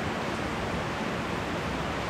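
Steady rain from a spring thunderstorm pouring down on leafy trees, an even, unbroken hiss.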